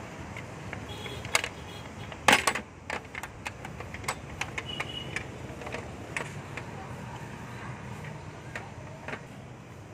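Metal utensils clanking and tapping against a large aluminium biryani pot as cooked long-grain rice is tipped from a steel strainer over the chicken masala, with a loud clatter a little over two seconds in and lighter taps after it.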